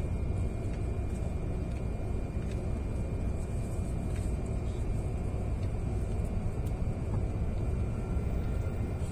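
Steady low rumble of a Hokuriku Shinkansen train running, heard from inside the passenger cabin.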